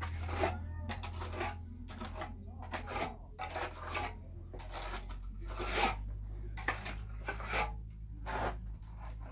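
Irregular scraping and knocking handling sounds, about one or two short strokes a second, over a steady low hum.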